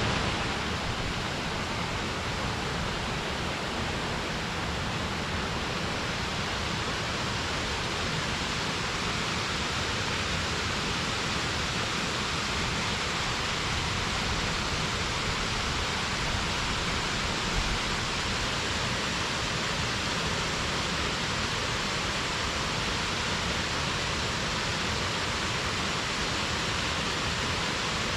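Waterfall pouring: a steady, even rush of falling water, unchanging throughout.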